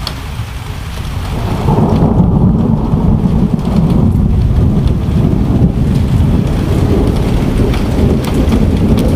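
Thunder rumbling in a heavy, long roll that swells about two seconds in and keeps going, over steady rain with scattered drops ticking close by.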